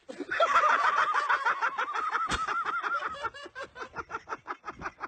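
High-pitched, rapid fit of laughter, about eight pulses a second, loudest at first and fading over the last couple of seconds. A single sharp knock about two seconds in.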